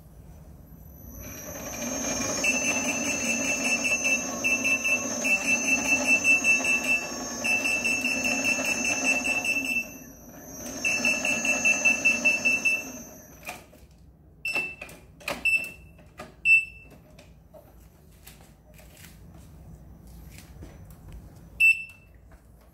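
KingSong KS-14C electric unicycle sounding its warning alarm: rapid high beeping over a whine for several seconds, a short break, then a shorter second stretch, followed by a handful of single beeps. This is the unicycle's warning ahead of a cut-off.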